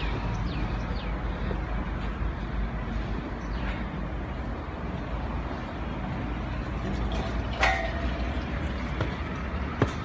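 A concrete pump running with a steady low rumble, with a sharp metallic clank about three-quarters of the way in.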